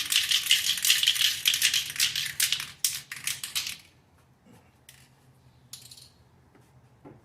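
Aerosol can of rust-inhibiting primer being shaken, its mixing ball rattling rapidly, until the shaking stops about four seconds in. A brief hiss follows about six seconds in.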